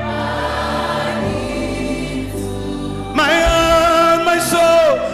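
Gospel worship song sung by a group of singers with a backing band. A soft held chord plays for about the first three seconds, then the voices come back in on a long note with vibrato.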